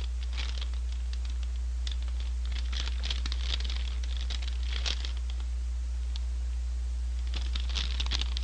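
McDonald's paper shaker fries bag crinkling and rustling as it is handled in both hands, in runs of quick crackles, with a steady low hum underneath.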